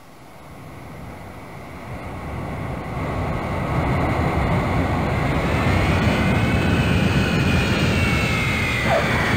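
Jet aircraft approaching and passing close by. Its engine roar builds steadily over about five seconds, and a high whine rises and then slowly falls in pitch as it passes.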